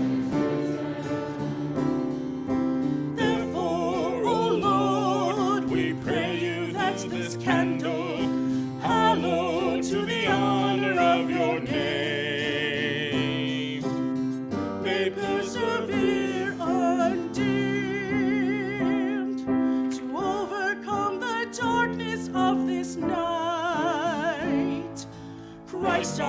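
Church music: singers with vibrato voices sing a sung refrain or interlude over held keyboard chords.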